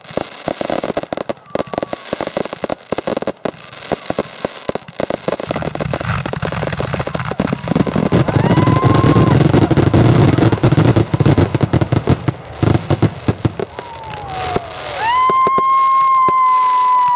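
Aerial fireworks going off: rapid crackling and popping throughout, swelling into a dense, loud stretch of crackle and bangs in the middle. Near the end several whistling fireworks sound together, each gliding up in pitch and then holding a steady whistle.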